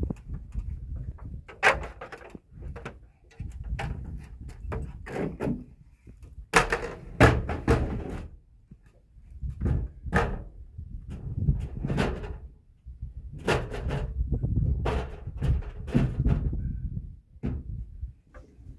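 Irregular knocks, bumps and thumps of a hard tool case and a ladder being handled against a wooden concrete form wall. Several sharper knocks stand out, the loudest about two seconds in and about six and a half seconds in.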